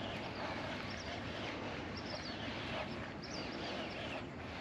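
Small birds chirping over and over in short high notes, over a steady outdoor hiss.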